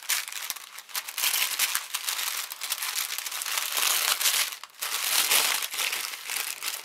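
Wrapping paper crinkling and rustling in the hands as a small gift parcel is unwrapped. The crackle is nearly continuous, with a brief pause a little past the middle.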